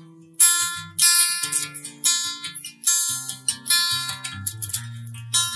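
Background music: a guitar playing plucked and strummed notes, each struck sharply and dying away, over a sustained low note in the second half.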